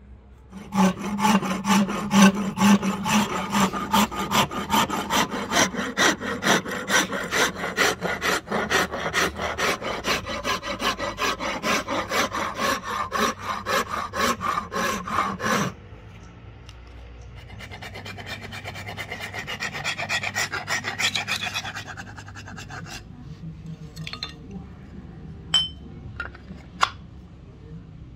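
Steel file rasping across a rosewood axe handle in quick, even strokes, about three a second, cutting off abruptly about halfway through. A quieter, smoother rubbing follows for several seconds, then a few light ticks and a short metallic clink near the end.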